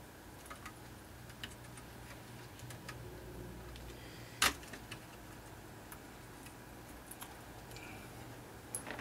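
Small, scattered plastic clicks and taps as laptop connectors and internal parts are handled, with one sharper snap about four and a half seconds in, over a faint low steady hum.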